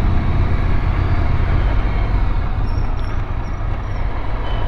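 Ducati Scrambler motorcycle riding along at steady speed, its L-twin engine running with a dense, steady low rumble.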